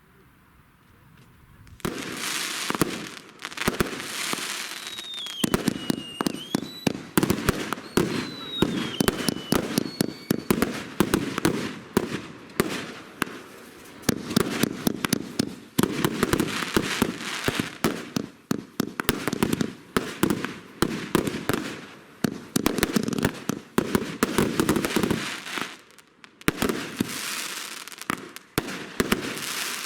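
"Knisterteufel" firework cake firing: after about two seconds of near quiet it bursts into a dense, continuous run of sharp cracks and crackling pops that keeps going, with a few faint whistles a few seconds in.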